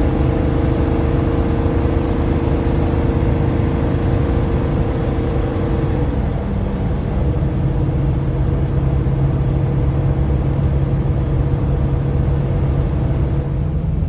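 Engine and road noise inside the cab of a 2014 Sunstar 26HE motorhome under way. The engine note drops in pitch about six seconds in, then runs steady at the lower note.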